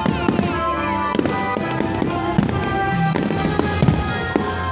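Fireworks shells bursting in the air, a string of irregular sharp bangs, over loud music with sustained tones.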